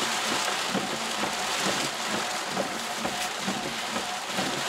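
Torrential rain pelting a car's roof and windshield, heard from inside the moving car as a steady, dense hiss full of small patters.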